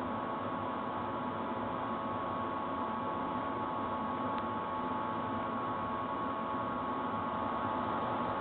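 Atlas GP9 and GP7 model diesel locomotives under DCC control running steadily up a grade with a short train, giving a steady electrical hum with a few thin high tones over a soft rolling hiss.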